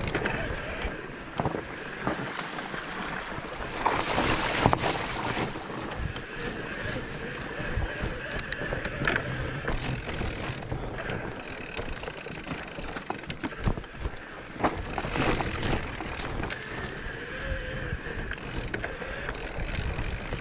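Mountain bike ridden over a rough trail: a continuous rattle of small knocks from the bike and tyres over stones and roots, with wind buffeting the microphone. It gets louder and rougher about four seconds in.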